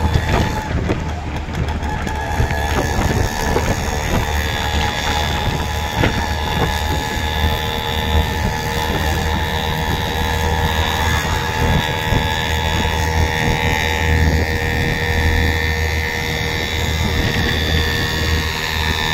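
Steady road noise and wind rushing past the microphone from a vehicle moving along a highway, with an engine running underneath as a low rumble.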